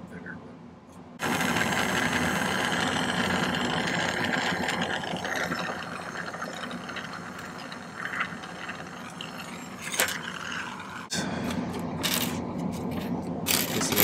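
Jeweler's gas torch flame hissing steadily, switched on about a second in, as it heats sterling silver wire on a soldering block.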